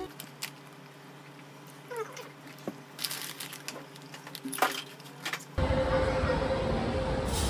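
A potato-chip bag crinkling and rustling in a few short crackles, with a brief small squeak about two seconds in. Just past halfway it cuts abruptly to a loud, steady rumbling ambience with a hum running through it.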